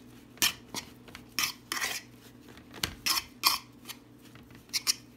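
Meatball mixture of crumbled plant-based burger and breadcrumbs being mixed by hand in a bowl: irregular short scrapes and knocks against the bowl, with a low thump about three seconds in.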